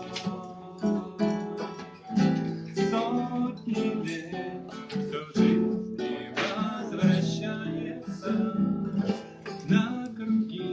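Acoustic guitar strummed in chords, an instrumental stretch between the sung lines of a song.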